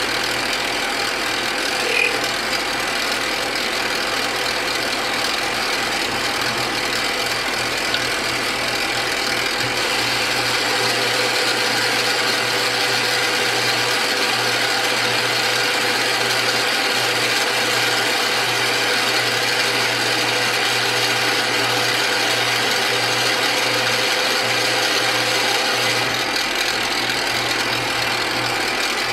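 Metal lathe running steadily, its spinning chuck and gearing humming under the steady noise of a cutting tool turning down a metal blank between chuck and live centre, bringing it to the major diameter for a 5/8-18 thread.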